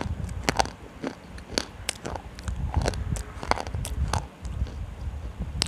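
Slate pencils being crunched and chewed right at a microphone held to the mouth: a string of sharp, irregular cracks and crunches over a low rumble.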